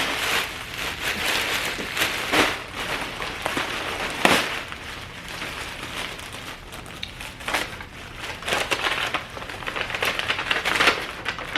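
Clothing packaging rustling and crinkling in irregular bursts as a packaged dress is handled and pulled out.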